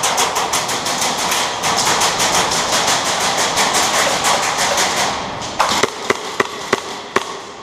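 Airsoft guns firing in rapid full-auto strings for about five seconds, then a few separate sharp cracks roughly a third of a second apart near the end.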